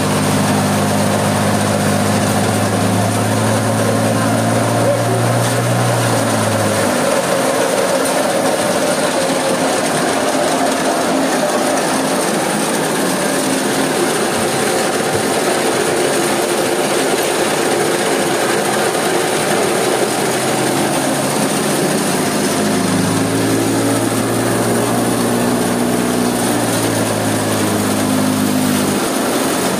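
Small hammer-mill stone crusher with a three-phase electric motor, running with a loud, steady noise. A low hum lies under it for the first several seconds, then again from about two-thirds of the way through until near the end.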